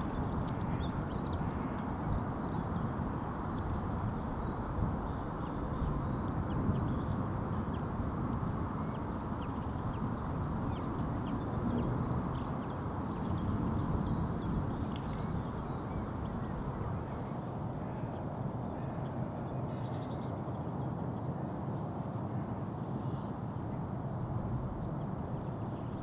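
Steady low outdoor rumble with faint, scattered short chirps of Eurasian tree sparrows, the chirps thinning out in the later part.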